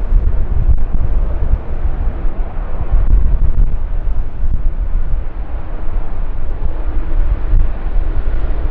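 Jet engines of a large wide-body airliner, a loud low rumble that goes on without a break.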